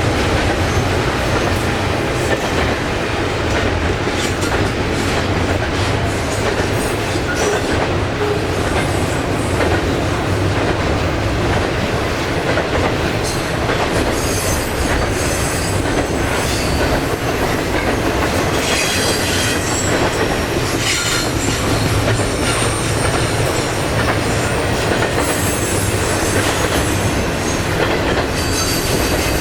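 A train's cars rolling past close by, a loud, steady rumble and clatter of wheels on the rails. High-pitched wheel squeals come and go through the second half.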